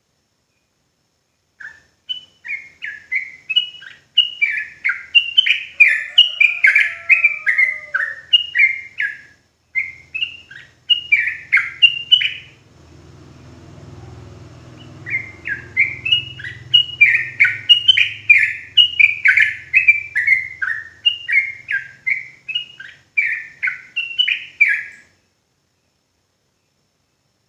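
Yellow-vented bulbul singing a long, fast run of short, bubbly falling notes, breaking off for a couple of seconds about halfway and then starting again.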